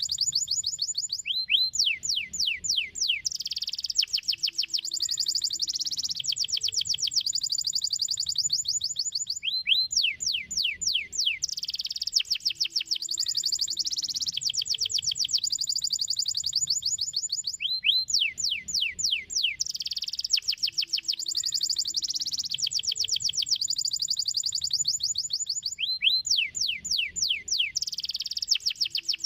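Domestic canary singing a long, fast song of high rolling trills, with the same phrase of rapid downward-sweeping notes returning about every eight seconds.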